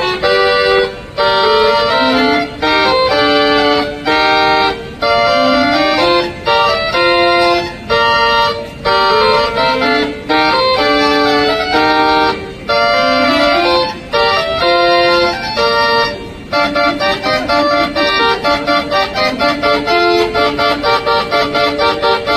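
Mechanical pipe-organ automaton playing a tune in held organ chords, the notes turning quicker and choppier in the last few seconds. It is taken for the chime calling the audience in to the concert.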